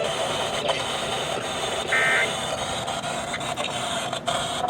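Emergency Alert System radio broadcast after the spoken alert. There is a steady hiss of radio noise, and about two seconds in comes a short, shrill burst of warbling EAS digital data tones. A second burst comes right at the end; these are typical of the end-of-message code that closes the alert.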